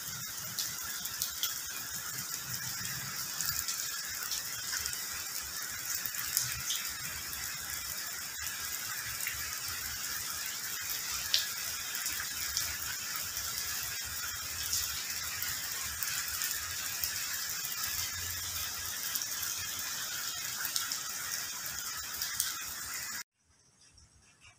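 Steady hiss of rain falling on foliage and floodwater, with scattered faint ticks; it cuts off suddenly near the end.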